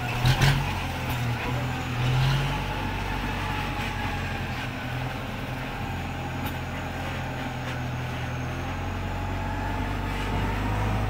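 Kubota M108S tractor's diesel engine running steadily as the tractor drives, with a few sharp knocks about half a second in.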